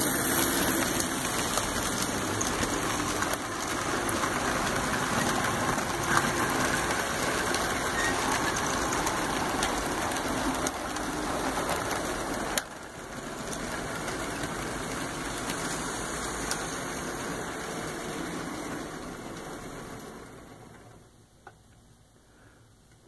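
HO scale model trains running along the track: the locomotives' motors and wheels make a steady running noise. About twelve and a half seconds in there is a click and the sound drops, then it fades away as the trains slow to a stop near the end.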